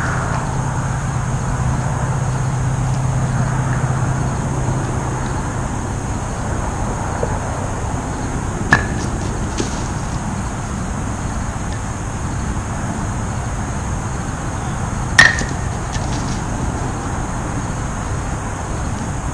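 Two sharp wooden clacks, about six seconds apart, the second the louder: thrown kubb batons striking wooden kubb blocks. A steady hum of distant traffic runs underneath.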